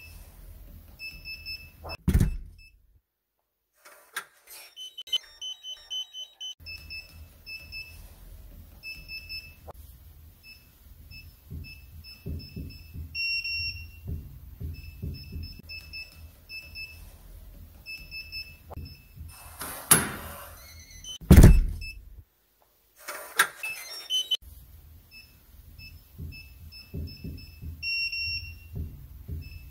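Digital front-door lock: a keypad beeping in quick groups as a code is punched in, a short run of higher beeps like an unlock tune, and the bolt and door clunking shut, with two loud clunks about 2 seconds and 21 seconds in.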